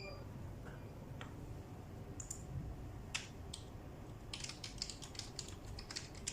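Computer keyboard typing: a few scattered key clicks, then a quick run of keystrokes about four seconds in.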